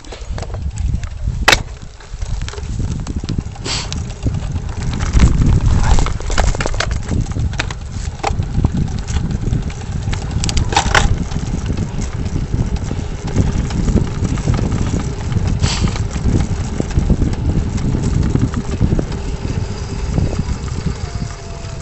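Mountain bike rolling fast over a rough dirt trail: a steady rumble of tyres and frame with constant rattling, and sharp clatters as it bounces over stones, loudest about a second and a half in and again around eleven seconds in.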